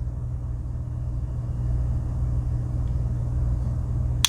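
Steady low rumbling hum with no pitch change, and one sharp click near the end.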